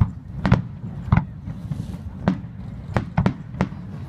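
Aerial fireworks shells bursting overhead: about ten sharp booms at irregular intervals, several coming close together in the second half.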